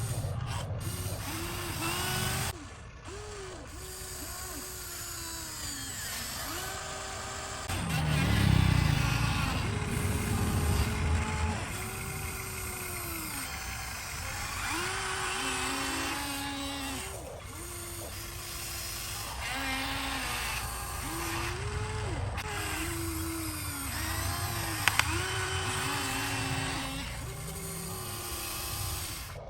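Small electric motors of an RC model excavator whining, the pitch rising and falling in short arches as it is worked. A louder low rumble comes about eight seconds in and lasts a few seconds.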